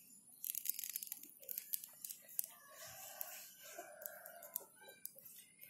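Faint scattered clicks and rustling, handling noise from the phone as it is moved, with a faint distant call twice around the middle.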